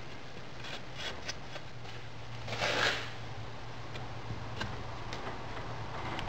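Hands packing and spreading moulding sand in a metal moulding box: gritty rustling and scraping with scattered small clicks, and a louder sandy swish about two and a half seconds in.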